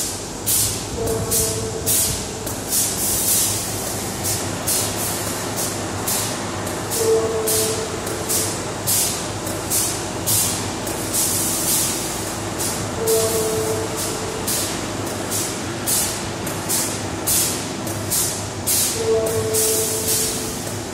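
Automatic bagging machine running as it fills a bag towards its 25 kg target weight: short sharp hisses of air repeating about twice a second over a steady hum, with a brief tone sounding about every six seconds.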